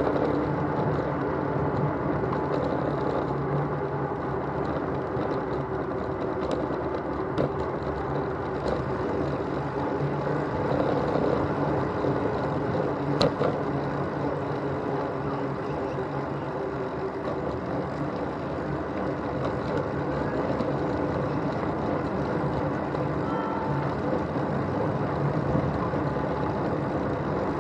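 Steady rumbling noise of a bicycle ride picked up by a camera on the handlebar stem: tyre and wind noise, with occasional small clicks and rattles from the bike and one sharper click about halfway.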